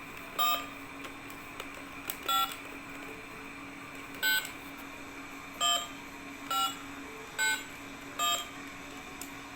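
Buttons on a children's toy remote control being pressed, each press giving a short electronic beep like a phone's keypad tone; seven beeps at uneven spacing over a faint steady hum.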